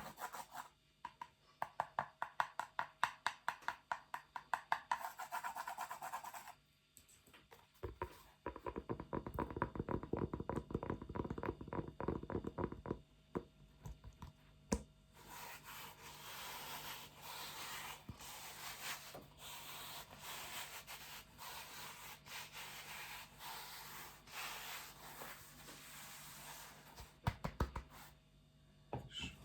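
Close-miked ASMR object sounds: a run of quick, crisp taps for about six seconds, then a faster run of duller strokes, then continuous scratching and rubbing for the rest.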